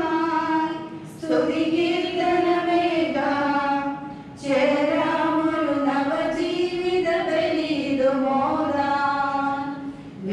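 Voices singing a church hymn in long held phrases, with short breaks about a second in and about four seconds in.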